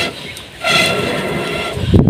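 Breath blown through a blow pipe into the embers of a wood fire, the pipe sounding a steady hooting whistle with each blow. One blow trails off at the start, and after a short pause another steady blow lasts about a second.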